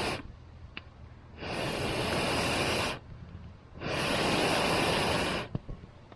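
Long breaths blown onto a campfire, each a loud rush that starts and stops sharply: one ends just at the start, then two more of about a second and a half each, a second apart. Faint crackles and pops of the burning wood sound in the gaps.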